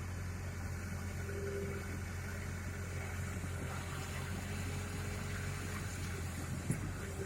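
Excavator's diesel engine running steadily, a low even rumble, with one short click near the end.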